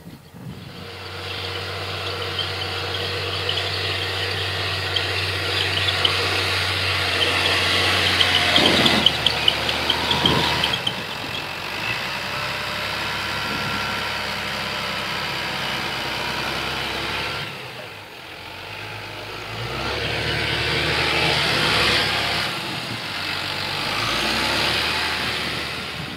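Valtra T120 tractor engine running steadily while it pulls an Amazone AD 3000 Super seed drill. The sound swells to its loudest about nine seconds in, with light rattling clicks, and changes abruptly twice, near eleven and eighteen seconds in.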